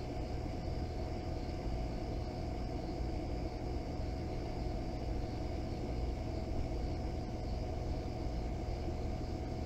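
Steady outdoor background noise: a low rumble and a hiss, with a faint steady hum over them.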